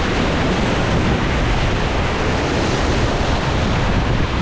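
Steady rush of whitewater rapids on the Ganges, with wind buffeting the microphone.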